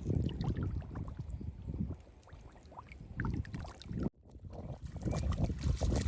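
Shallow water sloshing and splashing, irregular and uneven. The sound drops out for a moment about four seconds in.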